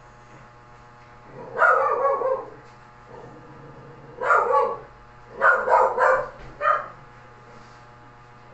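A dog barking, about five barks: a drawn-out one about two seconds in, then a quick run of four between about four and seven seconds.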